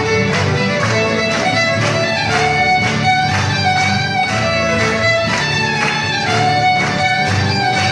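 Two fiddles playing a lively tune over two acoustic guitars strumming a steady rhythm, live string-band music.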